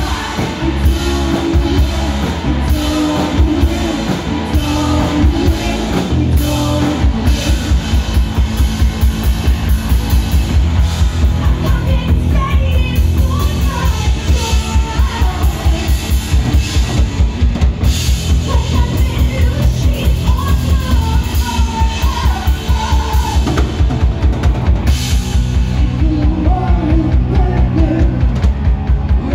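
Live rock band playing loud through a club PA: electric guitars, bass and drum kit. A fast, steady drum beat sets in about seven seconds in, and a singer's vocals come in about twelve seconds in.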